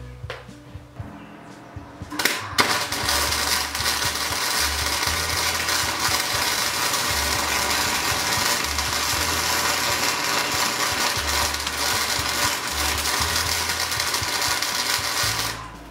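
Harbor Freight 220-volt MIG wire welder's arc striking about two seconds in, catching again a moment later, then crackling steadily through one continuous bead for about thirteen seconds before cutting off near the end.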